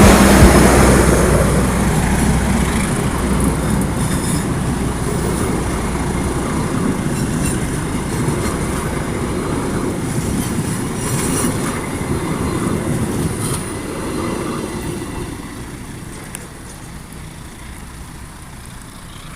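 Indonesian passenger train KA Joglosemarkerto passing by: a low locomotive drone in the first few seconds, then the carriages' wheels rolling over the rails, the sound slowly fading as the train moves away.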